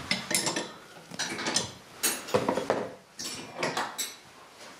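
Metal hand tools clicking and scraping as a wrench turns the bolts of a bearing puller clamped on a snowblower gearbox part, in four or five short bursts with pauses between.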